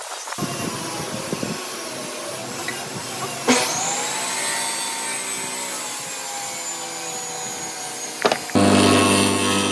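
Woodworking power tools running. A high-pitched motor spins up about a third of the way in and then runs steadily. Near the end a louder machine with a deep hum takes over suddenly.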